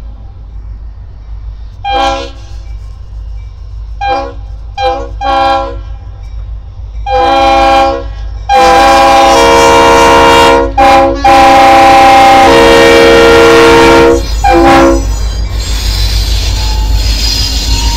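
Leslie RS-3L three-chime air horn on a Norfolk Southern EMD locomotive sounding for a grade crossing: a few short blasts, then long blasts of up to three seconds, ending with a short one about fifteen seconds in. In the last few seconds the locomotive and train roll by with a steady rumble of engine and wheels.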